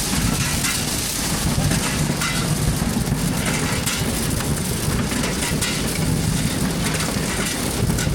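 Tractor engine running with a corn picker working: a steady engine drone under a continuous noisy hash from the machinery.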